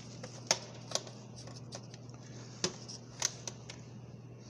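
A handful of sharp, irregularly spaced clicks and light knocks of hand tools being handled, over a steady low hum.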